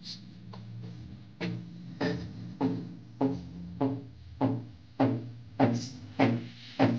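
Music played from a phone through a home-built amplifier on a Gold-601E amplifier board, driving two loudspeakers. From about a second and a half in, a plucked, percussive beat lands roughly every 0.6 seconds over a steady bass line.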